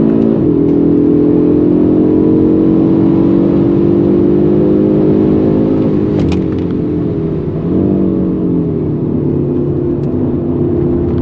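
Audi RS 3's turbocharged 2.5-litre five-cylinder engine heard from inside the cabin, pulling under hard acceleration. The pitch drops at a gear change just after the start, climbs slowly, and shifts again around the middle before running steady.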